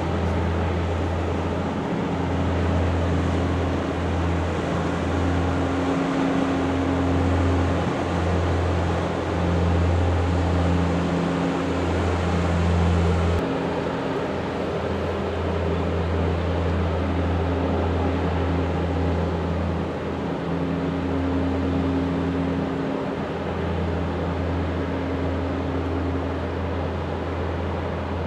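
Steady low drone of ship's diesel engines running, with two constant hum tones under a broad rushing noise.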